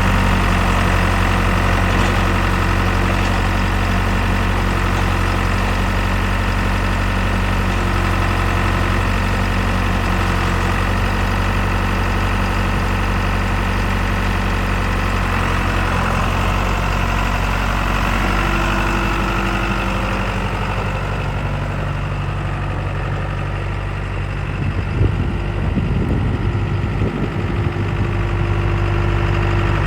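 John Deere 4510 compact tractor's three-cylinder diesel engine idling steadily. About twenty seconds in its pitch steps up slightly, and it runs a little unevenly for a few seconds near the end.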